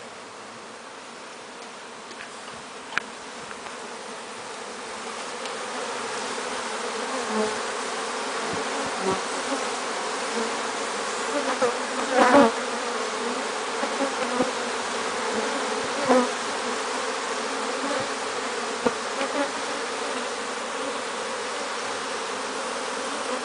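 Many feral Africanized honey bees buzzing around their nest, a defensive colony. The buzz grows louder over the first several seconds, and now and then a single bee zips close past with a brief louder buzz.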